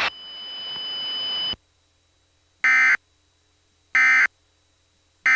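Emergency Alert System end-of-message (EOM) tones: short, buzzy bursts of encoded digital data, evenly spaced about 1.3 seconds apart, two full bursts with a third starting at the very end, signalling the end of the alert. Before them, a hiss with a steady high whine that cuts off after about a second and a half.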